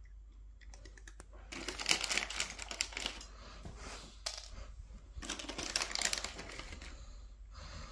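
Two bursts of crisp crinkling and rustling, full of fine clicks, each lasting about a second or more. The first comes about a second and a half in, the second about five seconds in.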